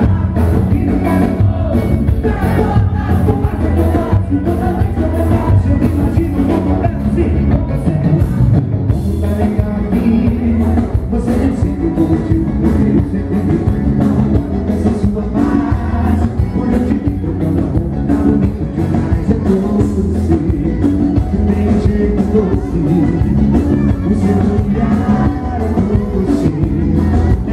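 Live band music with a male lead singer singing in Portuguese over accordion, keyboard and a steady drum beat.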